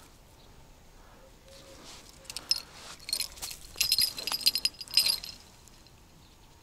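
Metallic jingling and clicking in quick clustered bursts with a high ringing edge. It starts a little over two seconds in and stops about five seconds in.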